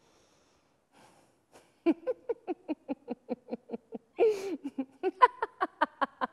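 A woman laughing in quick breathy bursts, about five a second, starting about two seconds in after near silence.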